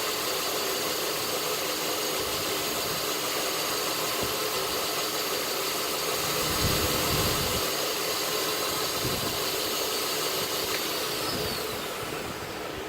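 North Ridge Tool belt grinder running with a steady whine from its motor and belt, then winding down with a falling whine near the end.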